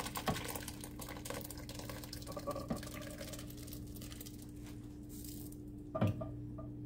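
Thick creamy potato soup pouring and splattering from a pot into a slow cooker's crock, trailing off after about five seconds. A single knock follows about six seconds in.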